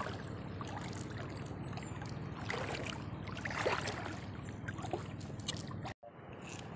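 Steady rushing noise of shallow seawater and wind, with a few faint clicks from handling the fishing rod and lure. The sound drops out briefly about six seconds in.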